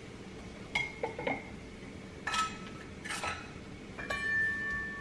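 Utensils and containers clinking and knocking on a kitchen counter as seasonings are handled, about five separate clinks, the one near the end ringing on for about a second.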